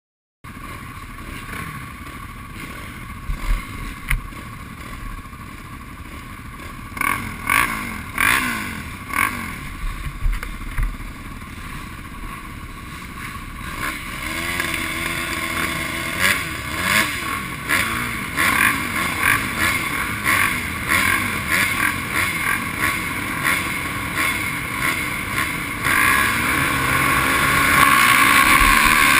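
Several motocross bikes idling at the start gate, their riders blipping the throttles in short, repeated revs; the engines run louder and rev harder over the last few seconds as the start nears.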